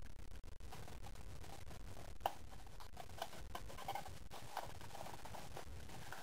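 Faint rustling and tapping of a cardboard perfume gift box being handled, with one sharper click about two seconds in, over a low steady hum.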